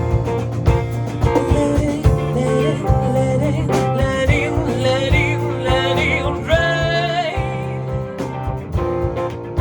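Instrumental break of a country-blues rock song: band music with a steady beat under guitar. A lead line of bending, wavering notes stands out about four to seven seconds in.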